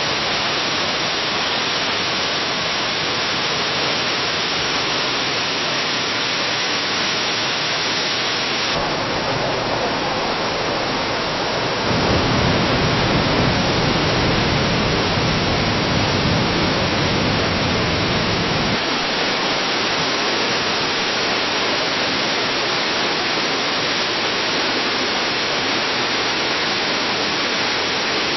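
Waterfall cascading down a cliff: a steady rush of falling water. The recording changes about 9 seconds in, and again about 19 seconds in. From about 12 to 19 seconds the sound is a heavier, deeper rush.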